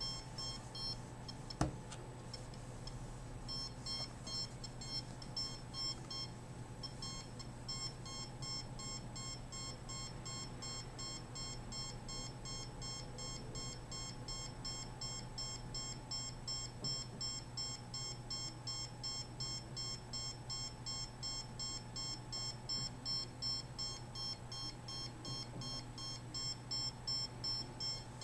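Handheld RF meter's alarm beeping rapidly and steadily in short high-pitched pips, signalling a high radio-frequency reading. A steady low hum runs beneath it, with a single click about one and a half seconds in.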